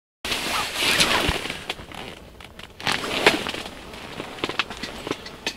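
Rustling and crackling handling noise with a run of sharp clicks and knocks, loudest in the first second and again about three seconds in, then settling to a lower crackle.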